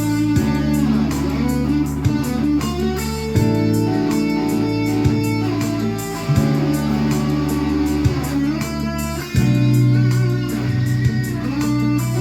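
Electric guitar playing over a steady beat, with sustained low notes changing every few seconds underneath.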